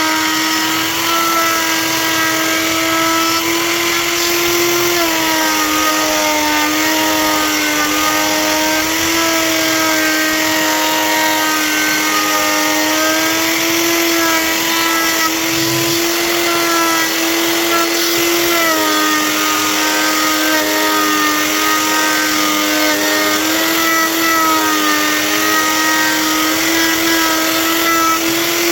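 Electric power tool motor running continuously at high speed, its whine dipping slightly in pitch every few seconds as it bears into the wood and recovers.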